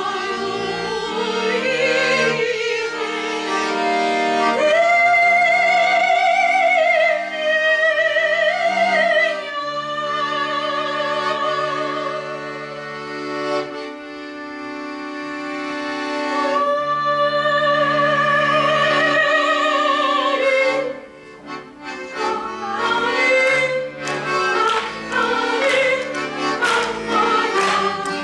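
A woman singing with wide vibrato over held chords on a chromatic button accordion. About 21 seconds in the singing stops briefly, and the accordion goes on with a quicker, rhythmic part with sharp accents.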